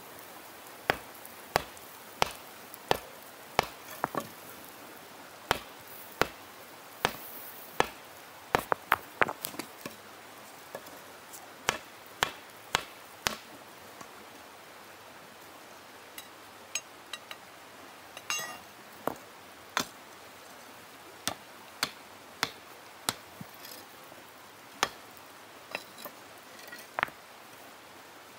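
Stone hammer striking hot iron as an axe head is forged: sharp blows about every two-thirds of a second, in runs, with a break of a few seconds about halfway through.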